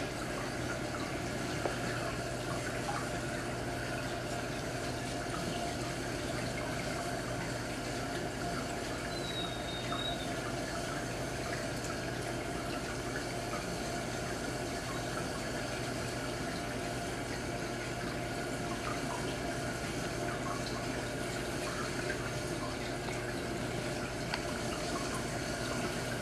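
Marine aquarium's water circulation: steady running, splashing water with a low, even hum.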